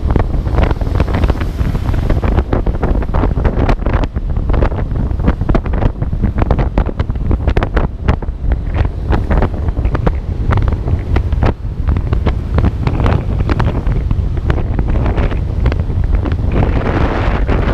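Wind buffeting a GoPro Hero4's microphone on a moving motor scooter: a loud, constant low rumble broken by fast, irregular crackling gusts.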